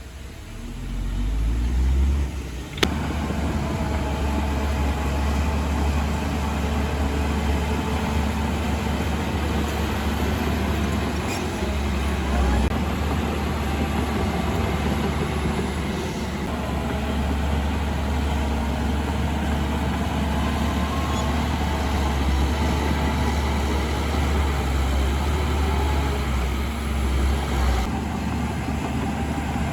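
Heavy diesel engine of earthmoving machinery running steadily under load, with a deep rumble that builds up over the first two seconds and a single sharp click about three seconds in.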